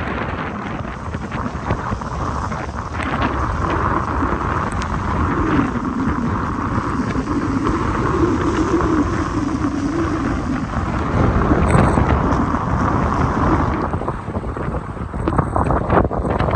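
Strong storm wind rushing and buffeting the microphone in a steady heavy rumble, with a low wavering howl for a few seconds in the middle.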